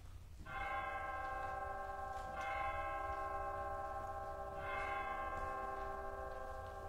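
Chimes striking the hour: three slow single strokes about two seconds apart, each one ringing on with several tones that are still sounding when the next stroke comes.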